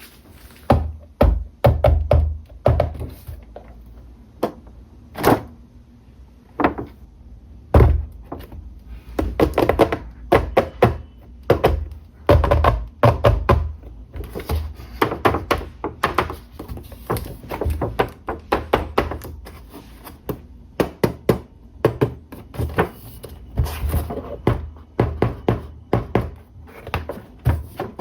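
Hands unboxing and handling plastic toy RC cars and their packaging on a hard surface: a run of irregular knocks, taps and thuds, several a second at times.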